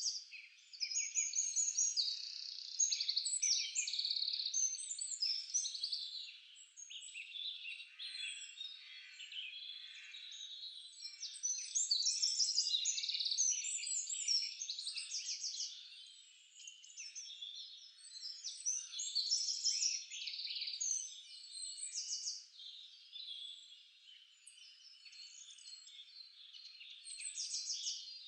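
Many songbirds singing at once in a dense chorus of overlapping chirps, quick trills and downward-sliding whistles, swelling louder and fading back several times.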